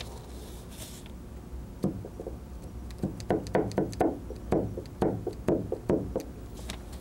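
Dental articulator tapped shut again and again, the stone cast's teeth clicking down onto articulating paper to mark the heavy spot on the gold pontic. A quick run of light knocks, about three a second, starts about two seconds in.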